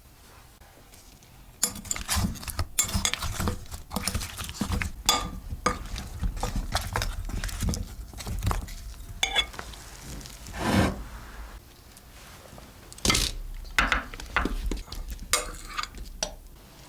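Kitchen utensils clinking, knocking and scraping against cookware as food is stirred and handled, in irregular strokes that start a couple of seconds in.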